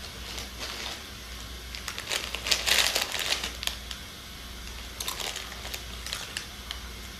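Shiny plastic snack wrapper crinkling in someone's hands as food is taken from it. The crackling comes in irregular bursts and is loudest around three seconds in.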